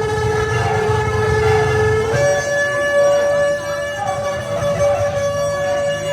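A long shofar blast: one steady horn note that steps up to a higher note about two seconds in and holds there. A low rumble runs underneath.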